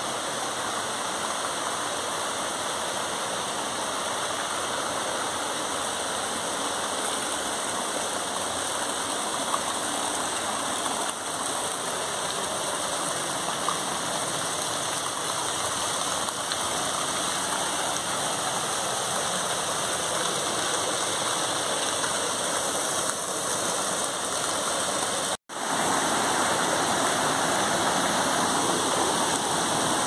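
Steady rushing of a waterfall and its stream. It cuts out for an instant about 25 seconds in, then returns a little louder.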